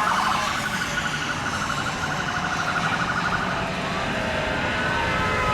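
An electronic siren or alarm wavering rapidly up and down, over a steady rush of wind noise. About four seconds in it changes to steadier, long-held tones.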